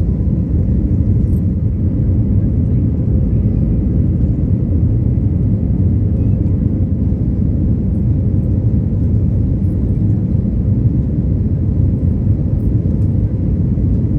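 Steady low rumble of jet engines and rushing air inside the cabin of an Airbus A321neo, during the takeoff or early climb.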